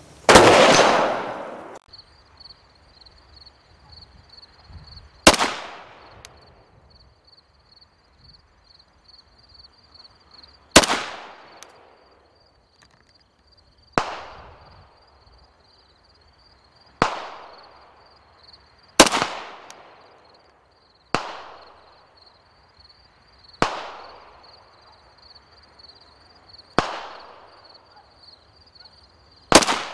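Single rifle shots, about ten in all, fired at irregular gaps of two to five seconds. Each is a sharp crack with a fading echo, and the first is the loudest. The first comes from a Tavor 7 bullpup rifle and the later ones from a SIG 556R in 7.62x39, both scoped. A faint, steady, high-pitched buzz runs under the later shots.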